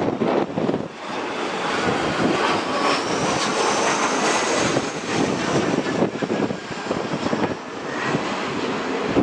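Jet airliner engines running as the plane passes, a dense rushing noise with a faint high whine that rises and then falls about midway, and wind gusting on the microphone.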